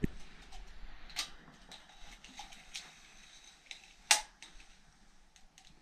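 Handling noises in a small room: scattered small clicks and knocks, with a low thump at the start and a sharper knock about four seconds in.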